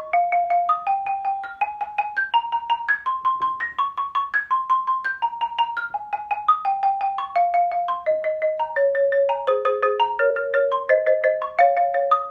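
Xylophone played in a quick practice exercise, its wooden bars struck in a rapid, even stream of notes. The line climbs stepwise up a scale, falls back down about two-thirds of the way through, then starts climbing again near the end.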